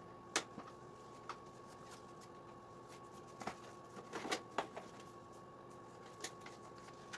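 Scattered light clicks, knocks and rustles of wiring and plastic parts being handled, with a small cluster about four seconds in, over a faint steady hum. No engine is running.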